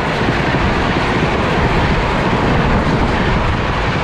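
Gatimaan Express coaches passing at speed on the adjacent track, close by: a loud, steady rush of wheel and rail noise.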